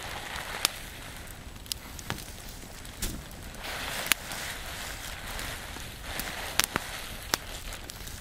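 Open fire of logs and shredded paper burning: a steady rush of flames with sharp pops and crackles, about eight in all, scattered irregularly.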